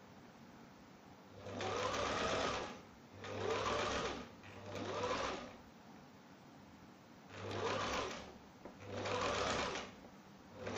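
Electric domestic sewing machine stitching a flower appliqué onto fabric in short runs: five runs of about a second each with pauses between, and a sixth starting at the end. Each run rises and falls in pitch as the motor speeds up and slows.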